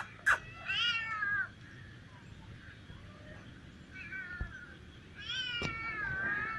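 Cats meowing: a falling meow about a second in, a short faint one around four seconds, and a long, wavering meow starting near the end. A sharp click comes just after the start.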